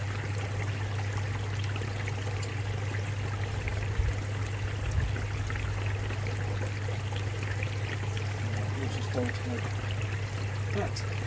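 Steady running, trickling water over a constant low hum, with two soft knocks about four and five seconds in.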